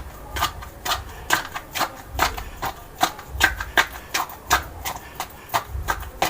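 Sausage meat being pushed down through a funnel into casing with a stick: quick repeated clicks and knocks, a few a second, over soft low thumps about once a second.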